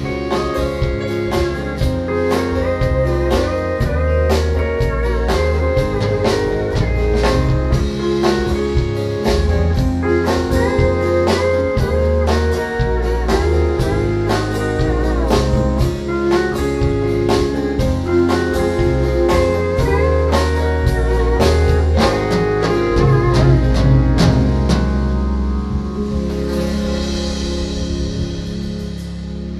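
Live band playing the instrumental outro of a country-blues song: guitar over bass and a drum kit keeping a steady beat, closing on a cymbal wash near the end.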